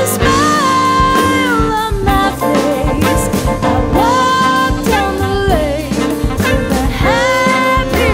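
A jazz band playing a swing arrangement: a held, sliding melody line over piano, bass and drums.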